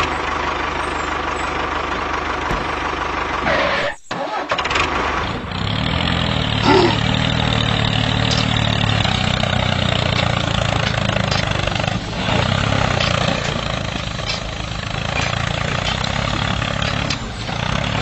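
Tractor engine sound running steadily. It drops out briefly about four seconds in and comes back with a deeper engine note.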